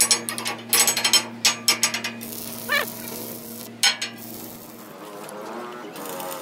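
Steel parts clanking and being struck as a brace is knocked into place on a loader bucket: a quick run of sharp ringing metal strikes in the first two seconds, then one more strike near four seconds, over a steady low electrical hum that stops about five seconds in.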